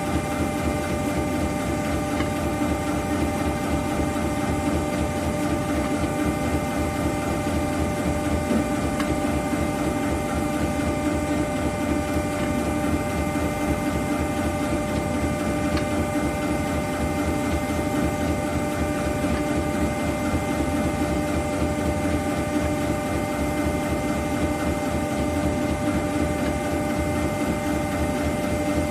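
Industrial machinery running steadily: a constant hum with several steady whining tones that do not change throughout.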